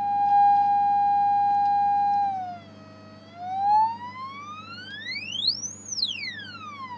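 A test tone from a signal generator played through a pair of small 32-ohm passive speakers driven by a simple three-transistor audio amplifier. A steady tone near a kilohertz, loudest in the first two seconds, then drops a little in pitch, sweeps up to a high whistle about six seconds in, and glides back down.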